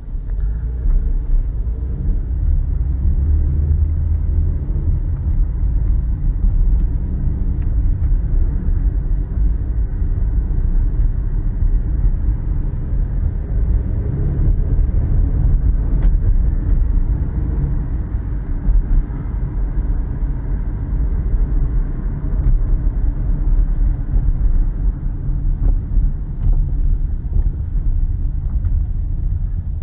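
A car being driven: a steady low road and engine rumble.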